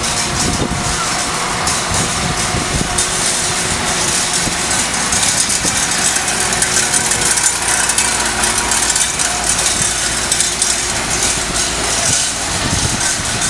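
Citroën Kégresse half-track running steadily as it drives slowly past on a gravel path, its engine and tracked running gear heard together.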